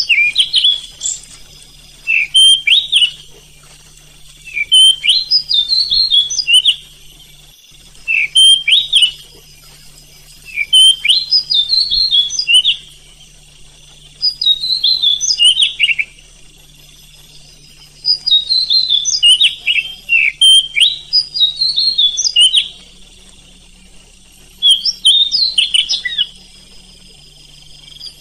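Oriental magpie-robin (kacer) singing: about nine short, loud phrases of quick sliding whistles, each one to two seconds long, with pauses of a second or two between them.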